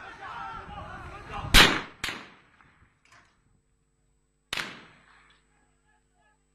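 Gunshots of live fire: a loud shot about a second and a half in, a second shot half a second later, and another about two-thirds of the way through, each trailing off in an echo. Voices can be heard before the first shot.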